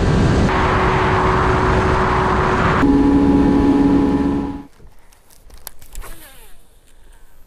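Bass boat running at speed: the outboard motor's steady drone with wind and water rush over the hull. It cuts off abruptly about four and a half seconds in, leaving only faint low sounds.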